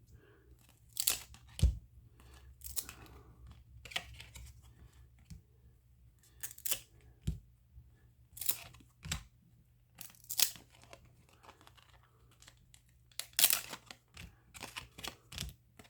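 Trading-card pack wrappers and cards being handled: short, irregular bursts of tearing and crinkling.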